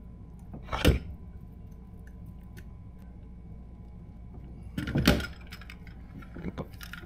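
Electronics cables and a connector being handled and plugged in against the kayak's plastic hull. There is a sharp knock about a second in, a cluster of knocks and rustles around five seconds, and small clicks in between, over a steady low hum.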